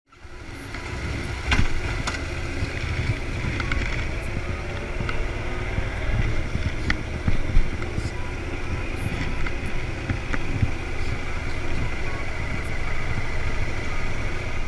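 Wind buffeting the microphone of a motorcycle-mounted action camera, over the motorcycle's running engine, while riding on the road. The sound fades in over the first second.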